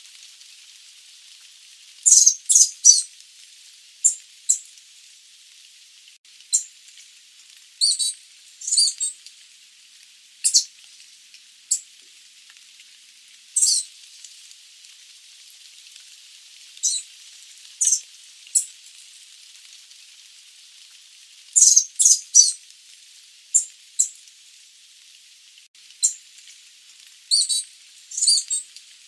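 Sooty babbler (Stachyris herberti) giving short, high-pitched calls, some single and some in quick runs of two or three, every few seconds over a steady hiss.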